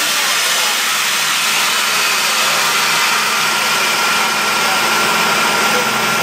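Parked coach bus idling close by: a steady running noise with a thin, constant whine over it.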